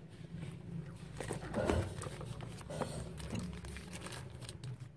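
Handling noise from unboxing a phone: the cardboard box and the plastic-wrapped phone are lifted and moved, giving light knocks and rustling, busiest about a second and a half in.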